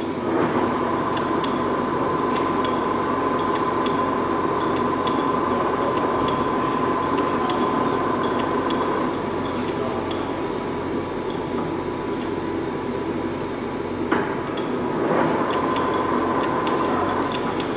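Axelson 28" x 72" engine lathe running with its geared headstock turning, a steady whine with light metallic gear clatter. The sound thins about nine seconds in, a sharp clack comes near fourteen seconds as a lever is shifted, and the whine picks up again.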